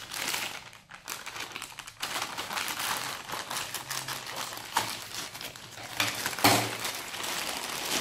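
Plastic poly mailer bag crinkling as it is cut open with scissors and pulled apart, with a few sharper crackles, the loudest about six and a half seconds in.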